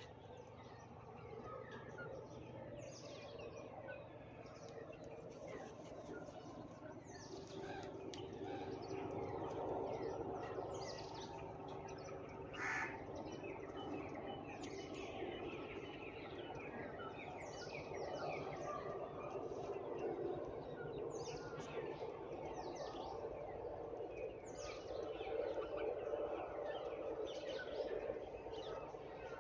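Many birds chirping at once, short falling chirps overlapping throughout, with one louder brief call about twelve and a half seconds in, over a steady low background hum.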